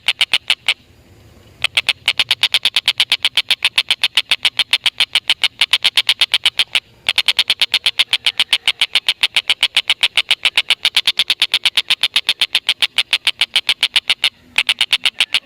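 Tengkek buto kingfisher giving its long, fast chattering call: a rapid run of sharp, high 'kek' notes, about six or seven a second, broken by short pauses about a second in, around the middle and near the end.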